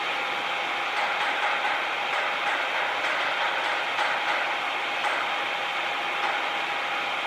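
Machinery workshop ambience: machines running steadily with a constant hum and scattered light clicks.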